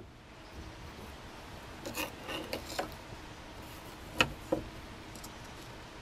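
Light scraping and small clicks of metal machete parts being handled and laid together on a bench vise, with two sharper knocks a little past the middle.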